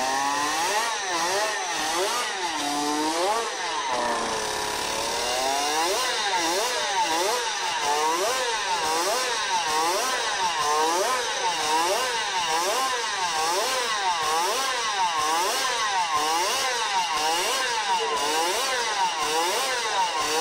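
Suzuki RP68 50cc racing motorcycle's twin-cylinder two-stroke engine being revved hard on the stand, the throttle blipped up and down again and again. The revs rise and fall slowly at first, then in quick blips about twice a second from a few seconds in.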